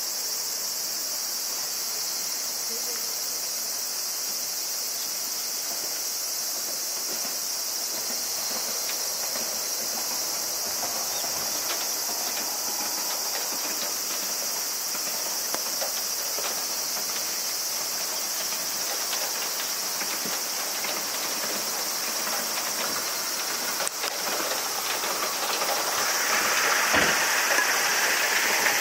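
Insects shrilling in a steady high-pitched drone. A broader hiss swells in over the last few seconds.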